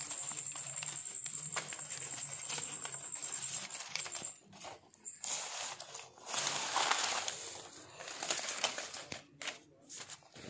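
Paper banknotes rustling and crinkling in irregular surges as a hand stirs through a loose heap of them.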